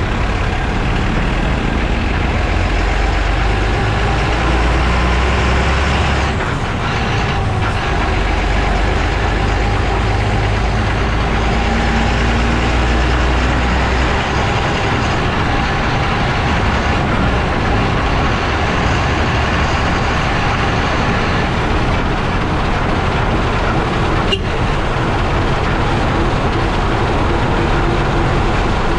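Road noise from beneath a moving lorry, heard by a camera mounted on its chassis: tyre roar, rushing air and a low engine drone run steadily, with the drone shifting in strength now and then and one brief click late on.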